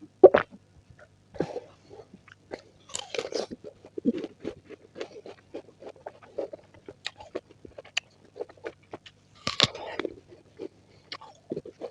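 Close-miked chewing and crunching of fruit: a sharp bite just after the start, then a run of wet, crackly chews, with denser crunching around three seconds in and again near ten seconds.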